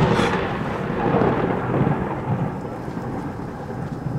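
Thunder rolling away in a long, fading rumble after a loud crack, over steady rain.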